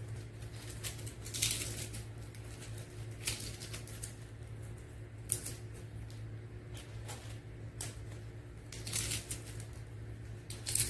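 Crisp cooked bacon crackling as it is crumbled by hand, in a few irregular bursts over a steady low hum.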